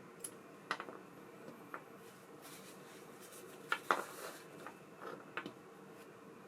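Scattered small clicks and light taps over a faint steady hum, the loudest pair a little under four seconds in: small parts of a baitcasting reel being handled on a workbench.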